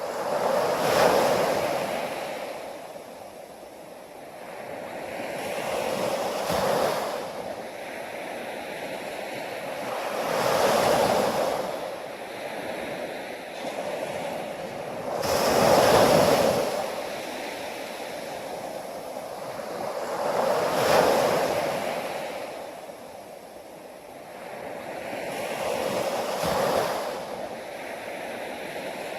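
Ocean surf: waves rolling in and washing back, one surge about every five seconds, six in all, with a steady wash between them.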